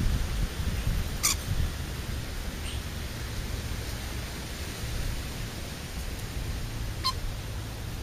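Wind rumbling on the microphone, with two brief, sharp high chirps, about a second in and about a second before the end.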